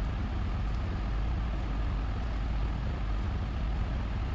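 Steady low rumbling background noise, even in level throughout, with no distinct events.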